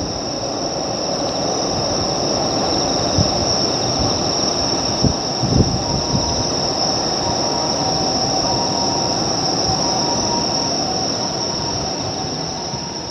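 Keio Line electric train running, with a steady high-pitched whine over a rumbling noise bed and a few low thumps about five seconds in; the sound fades out near the end.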